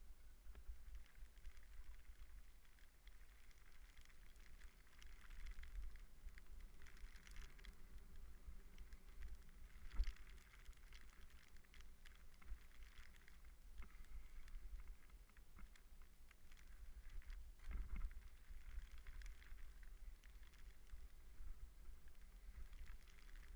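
Bicycle rolling downhill over a rough dirt trail: tyre crunch and the rattle of the bike over bumps, with wind rumbling on the microphone. A sharp knock about ten seconds in and another near eighteen seconds.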